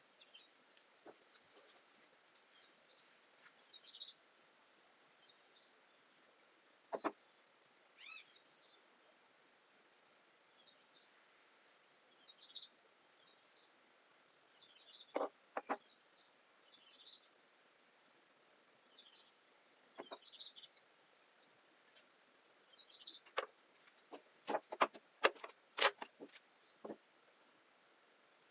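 Faint outdoor ambience: a steady high insect drone, likely crickets, with scattered short bird chirps. A handful of sharp clicks or taps sound now and then, and several come in quick succession near the end.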